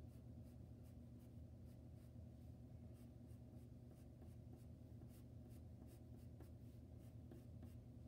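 Faint pencil scratching on paper: short, light strokes drawing little feather marks, a few each second over a low steady hum.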